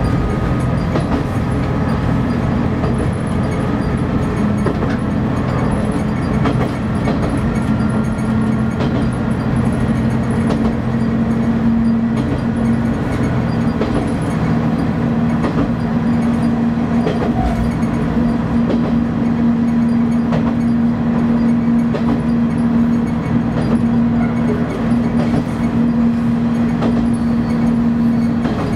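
KiHa 31 diesel railcar under way: the diesel engine runs steadily, and its note steps up a few seconds in and then holds. Wheel noise and faint clicks from the rails sit beneath it.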